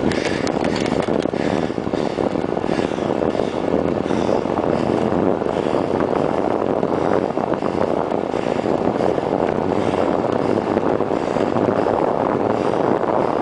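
Loud, steady wind noise on the microphone of a camera fixed to a bicycle's stem during a fast downhill ride, with tyre rumble from the road mixed in.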